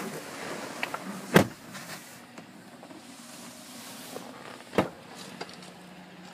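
Pickup truck doors shutting: two sharp thumps, one about a second and a half in and a second, slightly softer one near five seconds, with a faint steady low hum in between.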